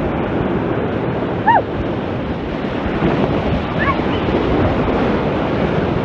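Fast white water rushing and churning through a waterpark rapids channel, a steady loud wash. Twice a brief high cry rises and falls over the water.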